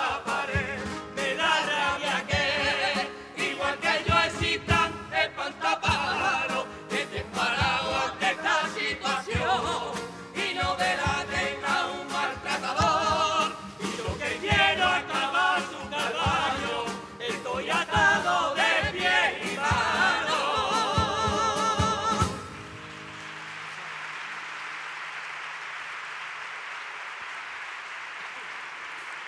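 A carnival comparsa's male choir singing in harmony, backed by acoustic guitar and steady drum strikes; the song stops abruptly about 22 seconds in. Even, steady applause follows to the end.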